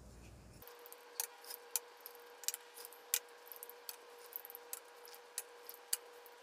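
Light, irregular clicks and taps, about a dozen, as a wooden spoon knocks and scrapes against small glass cups while emptying chopped ingredients into a mixing bowl. A faint steady hum runs underneath.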